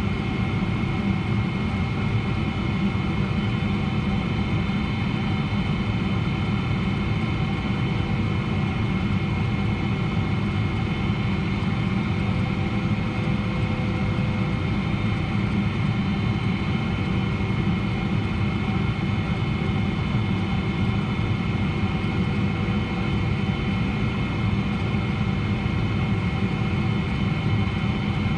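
Steady cabin noise of a Boeing 777-300ER on descent, heard from a window seat beside its GE90 engine: a low rumble of engine and airflow with several thin, steady whining tones above it.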